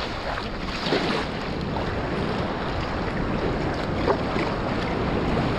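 Surf and whitewater rushing around a kayak as it is paddled out through the shore break, with a few paddle splashes and wind on the microphone.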